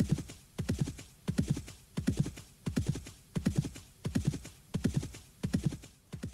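Horse galloping: hoofbeats in quick clusters of several strikes, the clusters repeating in a steady rhythm about three every two seconds.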